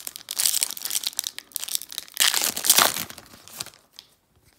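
Foil trading card pack wrapper being torn open and crinkled by hand, in two loud stretches, the second starting about two seconds in.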